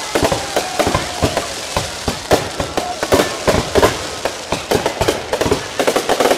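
Aerial fireworks display: a rapid, irregular run of bangs and crackles as shells burst and comets launch, several every second.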